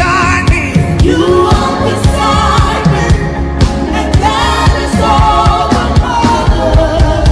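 Gospel worship music: sung vocals over a band with a steady drum beat and bass.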